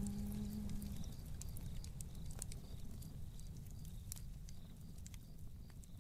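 A hummed vocal note, the end of the song's closing phrase, holds and stops about a second in. After it, a low rumble fades steadily away, with scattered faint clicks.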